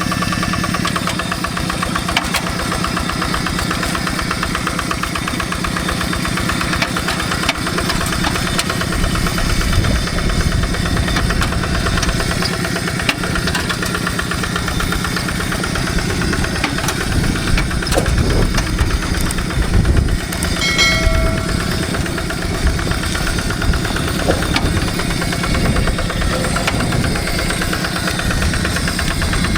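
Two-wheel hand tractor's single-cylinder diesel engine running steadily while plowing a rice paddy, a fast, even chugging.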